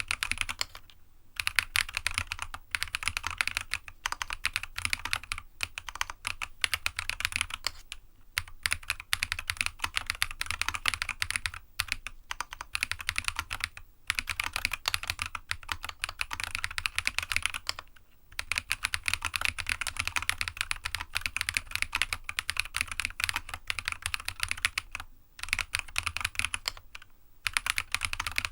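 Fast continuous typing on a GEONWORKS F1-8X custom mechanical keyboard with a PC sandwich plate, Jade Black switches and PBT keycaps: a rapid run of key clacks with a few brief pauses, a sound the typist likens to a typewriter.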